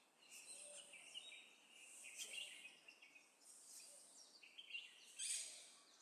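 Faint birdsong: scattered short chirps and little gliding calls from several birds, with a louder burst of chirping about five seconds in.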